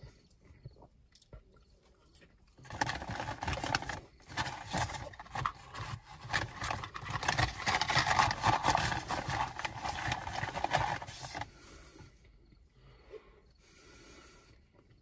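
Paper fast-food packaging rustling and crinkling as it is handled. It starts about three seconds in, is loudest around the middle and stops a few seconds before the end.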